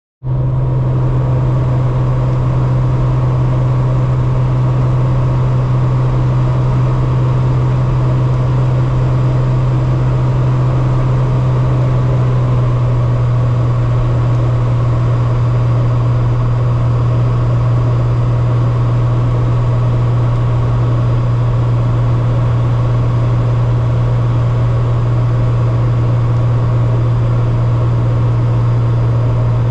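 Light aircraft's engine and propeller running steadily in cruise, heard inside the cabin as a loud, unchanging low hum with a constant rushing noise over it.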